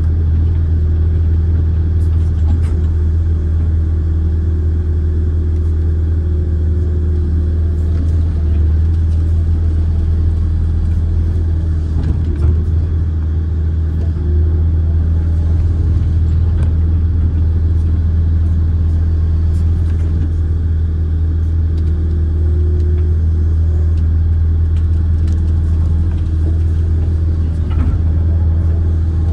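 Kobelco amphibious excavator's diesel engine running at a steady, even drone while the boom and bucket work, with a few faint clicks over it.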